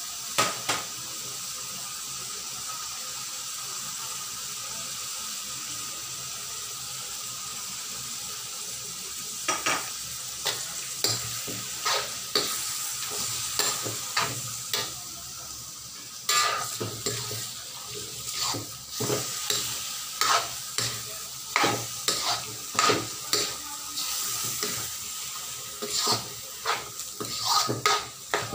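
Pork pieces sizzling in a wok. From about ten seconds in, a metal spatula scrapes and knocks against the wok, roughly once a second, as the seasoned meat is stirred and sautéed.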